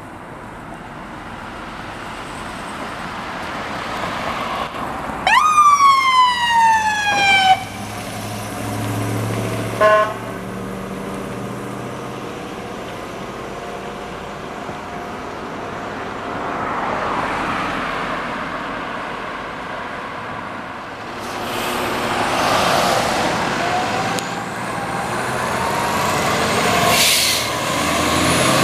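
Fire-rescue trucks responding with lights and siren: an electronic siren sounds one loud falling wail about five seconds in, then a short siren blip a few seconds later, over steady engine noise. Near the end a fire engine's engine grows louder as it passes.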